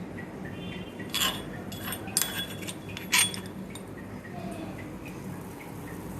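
Several sharp metallic clinks and taps, about four between one and three and a half seconds in, as crushed masala spices are tipped from the mortar into the saucepan of tea water. A steady low hum runs underneath.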